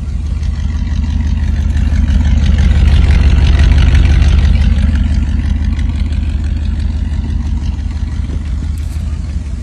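1970 Dodge D300 pickup's engine running with a steady low rumble that swells to its loudest a few seconds in and then eases off.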